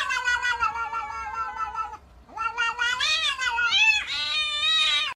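A cat yowling: one long, drawn-out, wavering call, then after a short pause about two seconds in, a second call that rises and falls in pitch and breaks up before ending abruptly.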